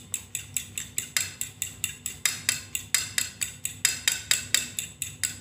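Metal fork beating a raw egg in a ceramic bowl, clinking against the bowl's sides in a quick, steady rhythm of about four to five taps a second.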